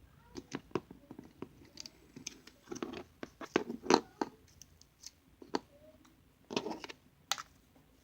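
Slime being squished and handled, making irregular short wet clicks and pops that come in clusters, busiest about three to four seconds in.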